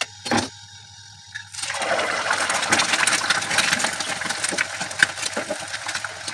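An egg frying in hot oil: after two short taps near the start, a loud sizzling with constant crackle sets in about a second and a half in and keeps going.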